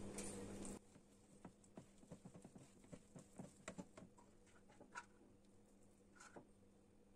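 Faint, irregular soft taps and crackles of a hand squeezing and mixing flour into an oily cookie dough in a plastic bowl. A low background hum cuts off under a second in.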